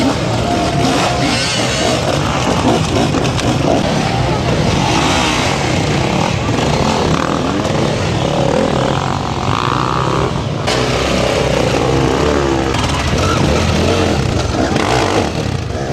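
Enduro dirt bike engines revving, the revs rising and falling again and again as the bikes are worked over rocks.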